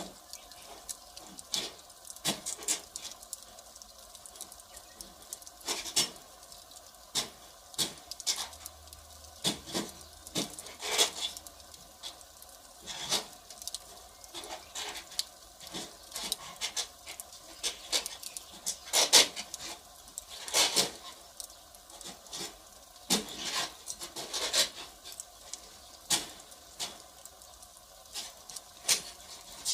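Firewood burning, crackling with irregular sharp pops and snaps, a few of them louder, over a faint steady hiss.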